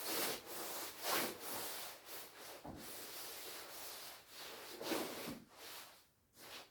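Shiny nylon shell of a down jacket rubbing and rustling in irregular surges as it is handled.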